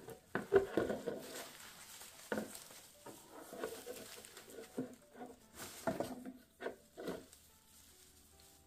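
Handling noise from a bundle of artificial flower stems and faux pampas plumes being turned and shaken: irregular rustles and light knocks, roughly one or two a second.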